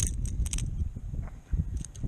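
Light metallic clicks and jingles of hook and tackle as a small hooked spotted sea trout is swung in and grabbed by hand. They cluster in the first half-second and come again near the end, over a low rumble of wind and handling on the microphone.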